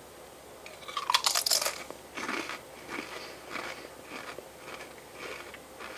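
A Pringles potato crisp bitten into with a sharp crunch about a second in, then chewed with a run of softer crunches, about two a second.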